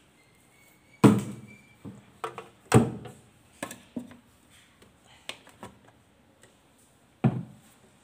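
Food containers being taken out of a refrigerator and set down: a series of knocks and thunks, the loudest about a second in, near three seconds and just after seven seconds.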